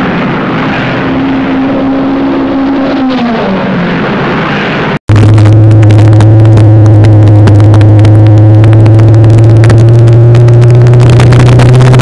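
Dirt-track stock car engine heard from inside the cockpit, running at low, even revs. The engine pitch drops about three seconds in, the sound cuts out for an instant about five seconds in, and then it comes back very loud and steady.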